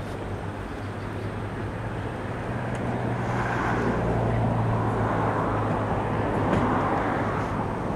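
A steady low engine hum under a wash of noise, growing louder about three seconds in.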